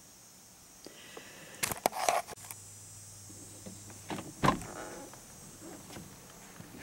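Handling knocks and clicks of movement inside a car, several close together about two seconds in and the loudest about four and a half seconds in, over a steady low hum that starts a few seconds in.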